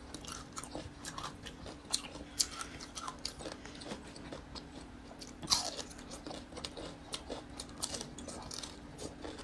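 Crisp crunching and chewing of sweet-and-sour pickled single-clove garlic, mixed with small wet crackles of its skin being peeled by hand. There is a louder crunch about five and a half seconds in.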